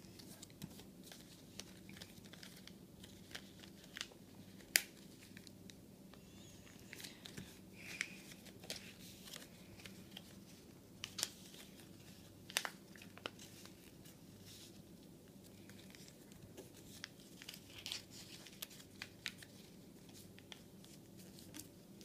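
Sheet of gold-and-white origami paper being folded and creased by hand: soft crinkling with scattered sharp crackles and snaps. The loudest snap comes about five seconds in, and another about twelve and a half seconds in.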